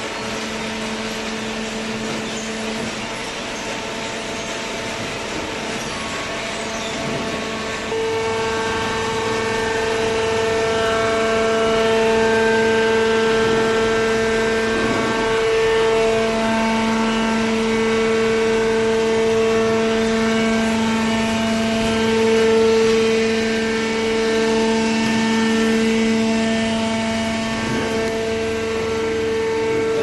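Hydraulic waste-paper baler running: a steady machine hum and whine with several held tones, getting louder about eight seconds in.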